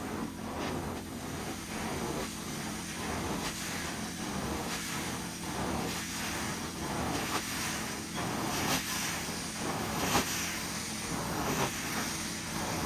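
Carpet cleaning machine's suction running steadily as its head is stroked back and forth over carpet, with a short rush of air on each stroke, about one to two a second.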